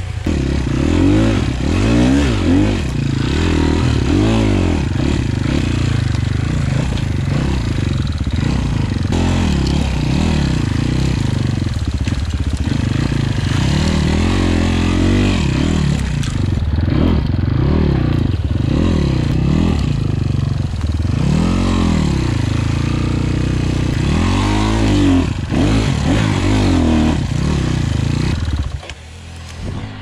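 Engine of a 250 cc enduro dirt bike, heard from on board, revving up and falling back again and again as it is ridden over rough trail ground, the pitch rising and dropping every second or two. The engine eases off briefly near the end.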